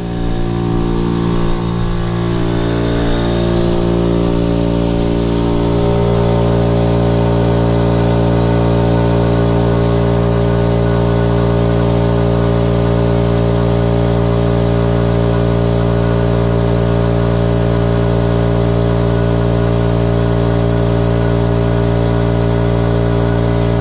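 Makita MAC5200 electric air compressor running with a steady mechanical hum. It grows louder over the first few seconds, then holds even, as the compressor runs to refill a tank that has drained while blowing air through a sprinkler zone.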